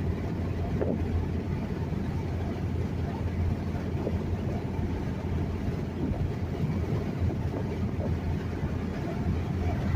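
Steady low rumble of road and engine noise inside the cab of a truck cruising on a highway.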